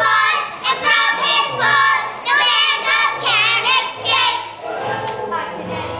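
Children singing together over instrumental accompaniment. About four and a half seconds in, the singing drops away and the accompaniment goes on more quietly.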